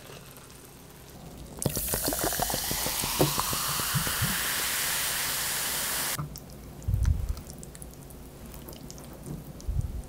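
Water poured into a glass with ice, ice cubes clinking at first and the pitch of the pour rising as the glass fills; it cuts off suddenly after about four and a half seconds. Two dull low thuds follow.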